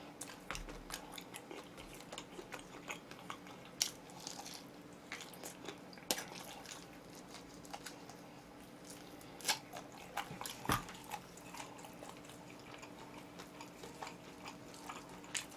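A person chewing and biting oven-roasted chicken, heard as soft, scattered crunches and mouth clicks.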